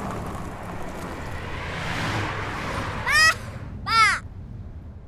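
A rush of wind and road noise from a moving car, then a young boy shouting twice from the car's open sunroof, two loud high cries about three and four seconds in, the second rising and falling in pitch.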